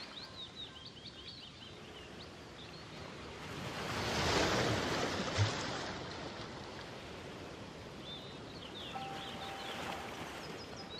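Relaxing background music track built on nature sounds: quick bird chirps at the start and again near the end, and a rush of noise like a wave that swells and fades around the middle.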